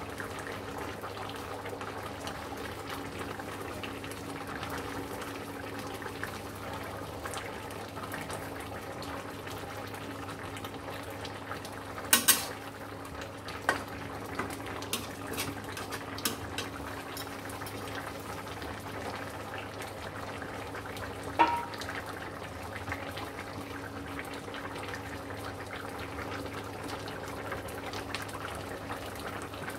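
Thin fish-and-ash-gourd curry simmering and bubbling steadily in a pan on a gas burner, with a low hum underneath. A spatula stirring the pan gives a few sharp knocks against the metal, the loudest about twelve seconds in and another about twenty-one seconds in.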